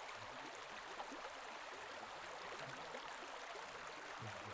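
Steady rush of flowing water, faint and even.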